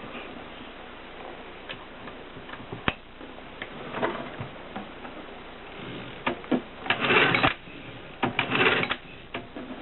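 Groma typewriter mechanism: scattered single clicks and knocks, then two louder rattling stretches of about half a second each in the second half.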